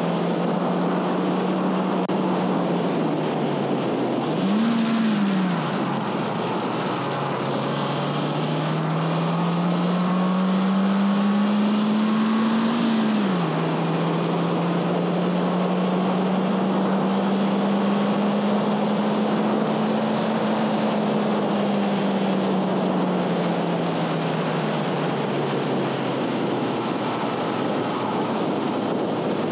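A 2011 Honda Fit's 1.5-litre four-cylinder engine under way, heard from inside the cabin with wind and road noise. Its pitch drops about three seconds in, jumps up and back in a quick blip about five seconds in, like a rev-matched downshift, then climbs steadily under acceleration and falls suddenly at an upshift about 13 seconds in. After that it rises and falls slowly.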